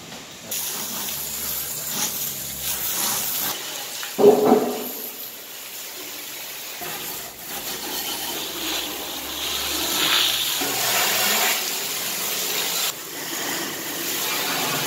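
Water spraying from a hand-held spray gun onto stainless-steel machine parts, a steady hiss and splatter of water on metal, with a brief louder thump about four seconds in.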